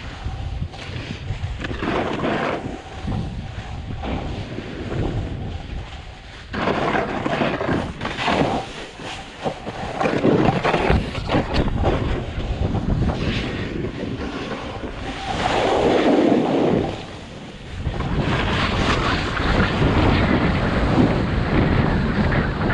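Wind noise on the camera microphone and a snowboard's edge scraping over packed snow, surging and easing with the turns.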